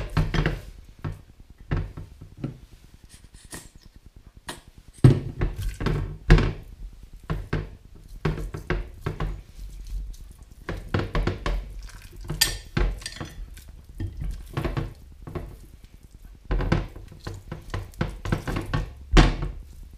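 Hands rubbing and slapping mustard onto a raw beef brisket in a glass dish, in irregular runs of short wet smacks and knocks as the meat is turned and pressed against the dish, with a quieter pause of a couple of seconds near the start.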